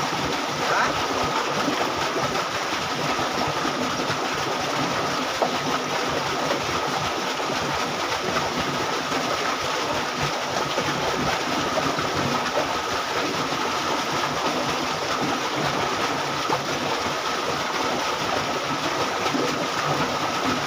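Steady rushing of water flowing along a concrete irrigation canal, with a faint steady high tone.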